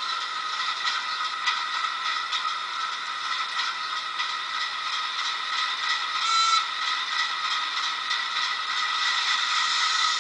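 Hornby class 08 diesel shunter model's DCC sound decoder playing its recorded diesel engine sound through a small onboard speaker: a thin, tinny, clattering engine note with no bass, with a short hissing squeal about six seconds in.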